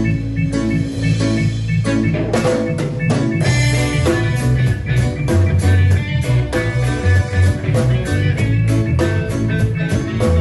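Band music with guitar, bass and a drum kit keeping a steady beat; the drumming becomes busier about two seconds in.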